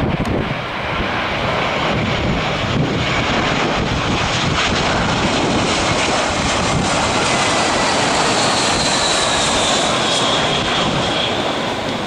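Airbus A320-family twin-jet airliner on final approach, its jet engines giving a loud, steady rush of noise. A high whine rides on top and falls slightly in pitch in the second half.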